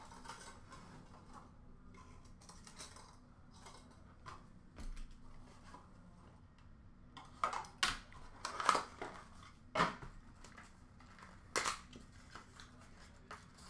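Trading cards and their packaging being handled: faint rustling with scattered light clicks, and a handful of sharper clicks in the second half.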